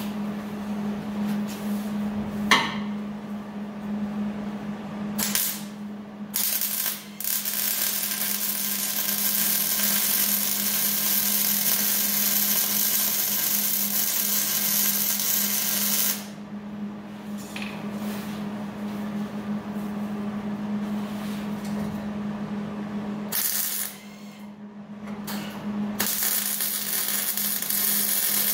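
Wire-feed (MIG) welder laying weld beads on a steel transmission crossmember bracket: a steady crackling hiss of the arc in three long runs with short pauses between, after a few brief tack bursts. A sharp knock about two and a half seconds in, and a steady hum underneath.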